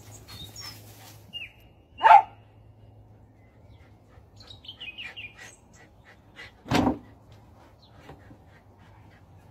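A dog barks twice, about two seconds in and again about five seconds later, each bark short and loud. Small birds chirp in between.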